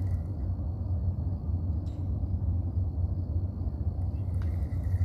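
Wind buffeting the phone's microphone: a steady low rumble that wavers slightly in level, with two faint clicks about two seconds and four seconds in.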